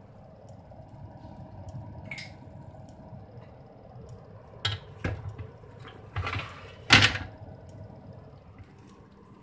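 Kitchen handling clatter: a few short knocks and scrapes about halfway through, the loudest about seven seconds in, over a low steady hum.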